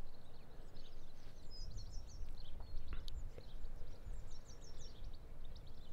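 Wind gusting over a Rode NTG2 shotgun microphone fitted with a foam cover and fur dead cat, heard as a steady low rumble that the windshield keeps muffled. A bird sings over it: two quick runs of high chirps, one about a second and a half in and another about four seconds in.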